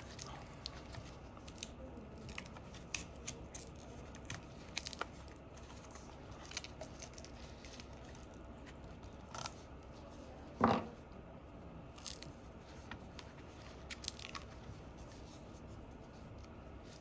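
Faint, scattered clicks and small handling sounds of tools and phone parts on a workbench, with one louder short sound about eleven seconds in.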